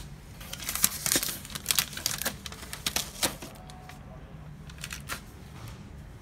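HP LaserJet Pro M203dn laser printer mechanism clicking and rattling in quick, irregular bursts, the fault noise of a printer that cannot print. The clatter is densest over the first three seconds or so, with a few more clicks about five seconds in.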